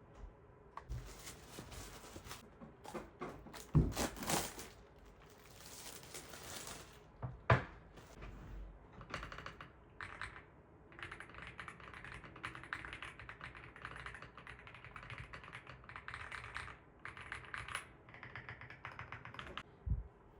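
Womier RD75 Pro mechanical keyboard being typed on: rapid keystroke clicks in bursts with short pauses through the second half. The first part holds a few sharp thuds and rustling handling noises.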